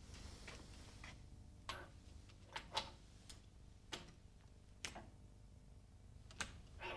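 Scattered sharp metallic clicks and clinks of a socket wrench working on the cylinder head of a diesel engine as the injectors are fitted and tightened, about eight at uneven intervals, faint over a low steady hum.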